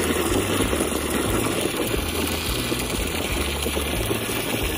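Muffled, rushing water noise as heard from under the surface of a pool, over background music with a stepping low bass line.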